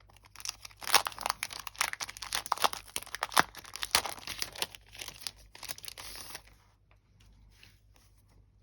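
Crinkling and rustling of packaging and paper as the pack holding a set of sticky-backed craft sheets is handled and unwrapped, a dense run of irregular crackles that stops about six seconds in.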